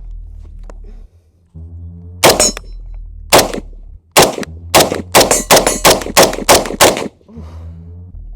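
IWI Tavor 7 bullpup rifle in 7.62 NATO (.308) firing about ten semi-automatic shots: the first few about a second apart, then a quick string of roughly three shots a second.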